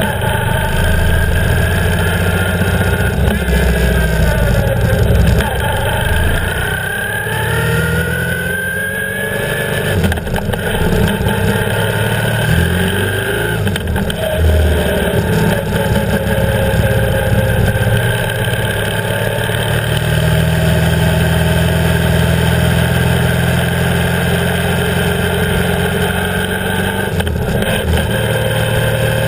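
BMW R 1150 GS boxer-twin engine under way. Its pitch rises and falls several times during the first third as the bike gets up to speed, then it runs more steadily, with wind and road noise on the low-mounted camera.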